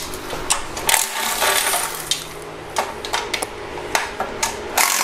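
Cordless driver running in short bursts to back out oil pan bolts, mixed with sharp metallic clicks and clinks of the socket and loosened bolts.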